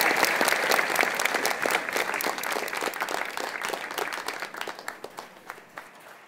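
Audience applauding, the clapping dying away steadily and thinning to scattered claps near the end.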